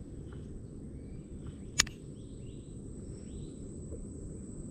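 Open-water outdoor ambience: a steady low rumble with faint birds chirping now and then, and one sharp click a little under two seconds in.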